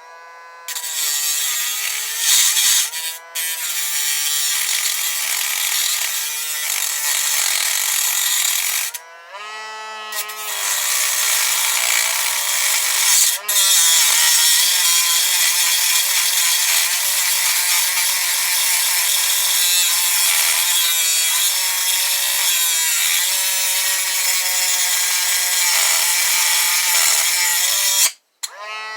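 A high-speed abrasive cut-off wheel grinding through a Master Lock padlock, its motor whine dipping under load. It starts under a second in, breaks off briefly about nine seconds in, resumes, and stops just before the end.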